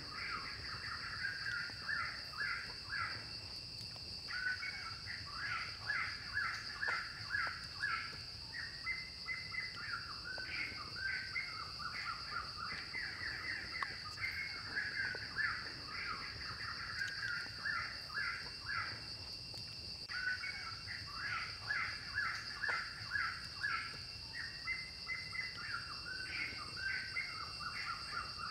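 Birds calling in quick, repeated chattering phrases that break off briefly about four seconds in and again near twenty seconds, over a steady high-pitched whine.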